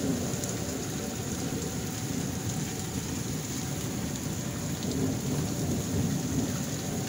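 Thunderstorm outdoors: steady rain with strong wind gusting over the microphone, giving a constant low rumble under the hiss of the rain.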